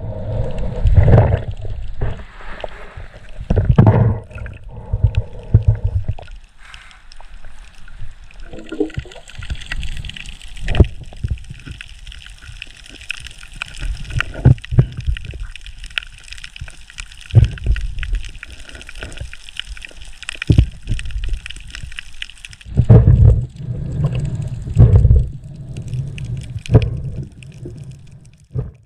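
Underwater water noise heard through a diver's camera housing: water gurgling and sloshing, with irregular low thumps and sharp clicks and a steady high hiss through the middle stretch.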